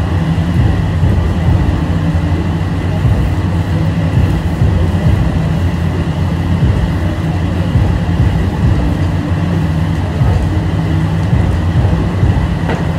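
Steady low machine hum with a faint steady high whine in a self-serve car wash bay, as a hand wand washes the car.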